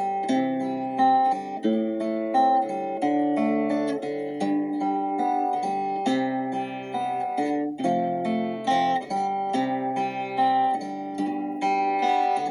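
Instrumental acoustic guitar music: slow, gently plucked notes and chords in a calm worship style, with no singing.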